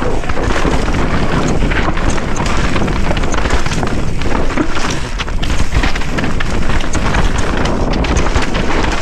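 Mountain bike rolling fast down a loose, rocky trail: tyres crunching over gravel and stones, with frequent sharp knocks and clicks from the bike, under heavy wind buffeting on the microphone.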